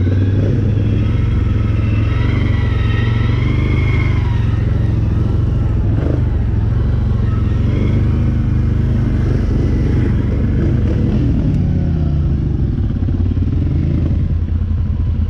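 Can-Am 1000 side-by-side's V-twin engine running steadily under way, a continuous low rumble.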